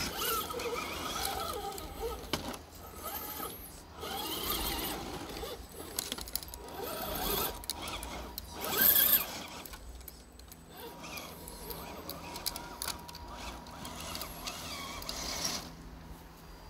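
Radio-controlled rock crawler driving: its small electric motor and gearbox whine in stop-and-go bursts as the pitch wavers with the throttle, with scattered clicks and knocks.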